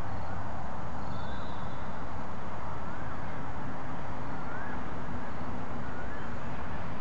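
Steady outdoor noise, heavy and rumbling at the low end, with a faint short rising-then-falling call repeating about every second and a half to two seconds, like a bird's.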